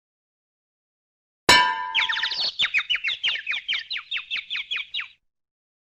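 Cartoon sound effect: a sharp clanging hit about a second and a half in, with a ringing tone, followed by a quick run of falling, springy pitch sweeps at about four a second that stops abruptly after about three seconds.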